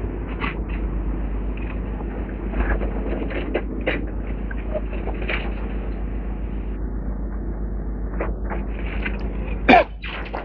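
Demolition machinery running, a steady engine rumble with scattered knocks and clatters of debris. A sharp, short screech near the end is the loudest sound.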